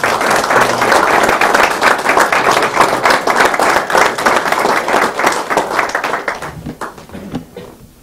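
A small group of people applauding. The clapping is dense for the first six seconds or so, then thins out and dies away near the end.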